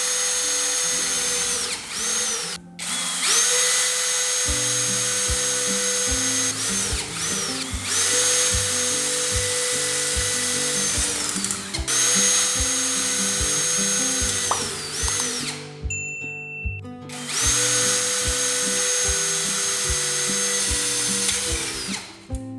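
An electric power tool running in long runs, its whine falling away each time it is let go and climbing back as it restarts, several times. Background music with a steady beat plays underneath.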